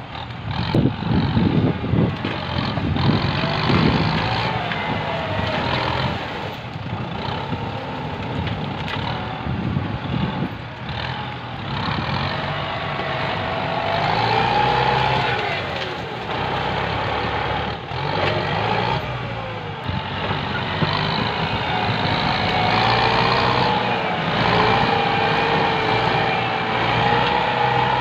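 Diesel engine of an orange Kubota farm tractor working hard under load, its pitch rising and falling as the load changes.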